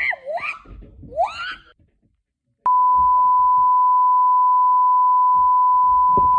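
A voice squealing with sliding pitch for about a second and a half, then a short silence. About two and a half seconds in, a loud, steady 1 kHz test-tone beep starts, the standard tone that goes with colour-bar test cards, and holds without a break.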